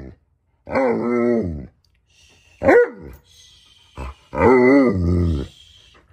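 Alaskan malamute "talking": two long, wavering woo-woo howls of about a second each, with a short rising-and-falling yelp between them. It is the impatient, demanding noise of a dog waiting to be fed.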